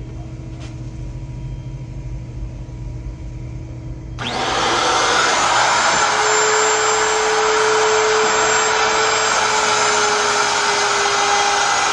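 Handheld router with a flush-trim bit starting up about four seconds in and running at a steady high speed as it trims walnut veneer flush with the plywood edge. Before it starts, only the low steady hum of a shop exhaust fan.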